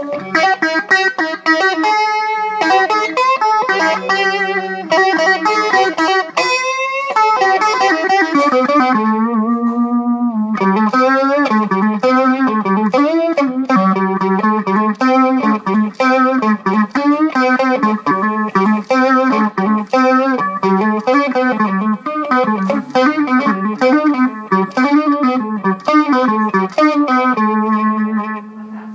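Guitar music played through effects: a quick run of picked notes weaving up and down, with an upward slide about seven seconds in, settling on a held note near the end.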